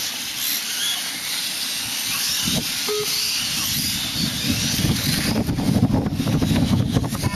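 Thin whine of 1/8-scale electric RC motorcycles racing round the track, faintly rising and falling over a steady hiss. From about five seconds in, wind rumbles on the microphone and becomes the loudest sound.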